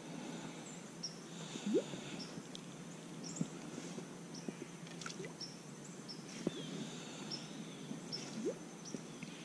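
Quiet lakeside ambience, with faint short high chirps recurring about once a second.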